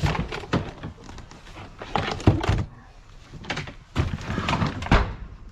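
Objects in a large storage bin knocking, thudding and scraping as it is rummaged through by hand: an irregular run of knocks and rustles, with heavier thuds about two seconds in and near the end.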